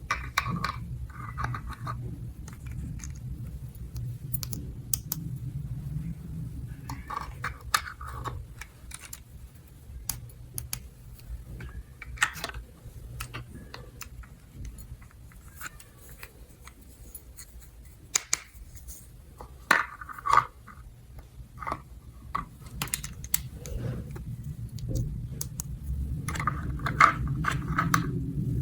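Small plastic toy pieces being handled: scattered light clicks and clatters, with a few brief rustles, over a low steady hum.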